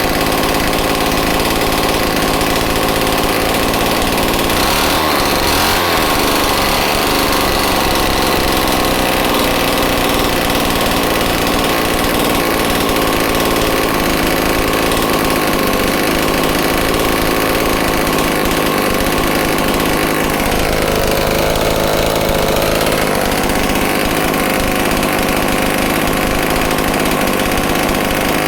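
Homelite XL-12 chainsaw's two-stroke engine running steadily, mostly at idle, shortly after a cold start. Its pitch shifts briefly about five seconds in and again about twenty seconds in.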